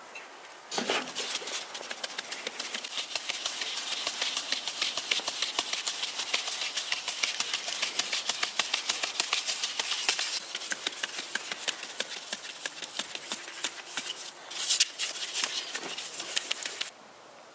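A round wire-mesh hand sieve being shaken to sift flour into a metal basin: a fast, steady rasping rattle of flour and mesh. It starts about a second in, swells briefly near the end, then stops abruptly.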